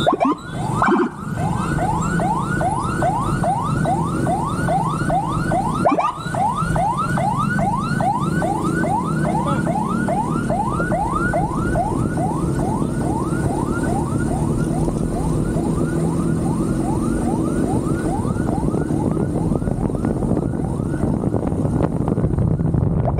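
Police motorcycle siren in a fast yelp, each note sweeping upward, about three a second, over engine and road rumble. It breaks off briefly about a second in and again around six seconds in.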